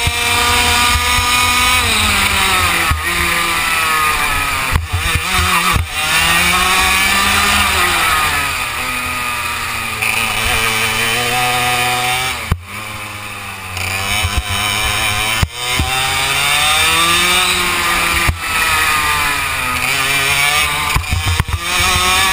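Kart engine heard from onboard, its pitch rising and falling again and again as the kart accelerates out of corners and slows into them, with a few short knocks along the way.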